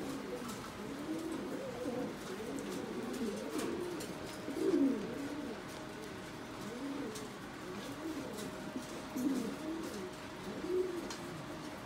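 Several Buchón Gaditano pouter pigeons cooing, low rolling coos repeated and overlapping, the loudest about five seconds in, as the birds strut with their crops puffed out.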